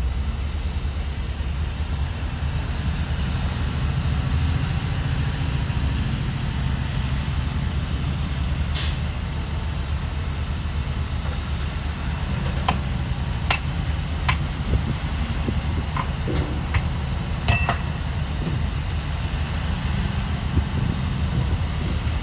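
Heavy diesel engines of bulldozers and a dump truck running steadily. There is a short hiss about nine seconds in, then a series of sharp clanks between about twelve and eighteen seconds in.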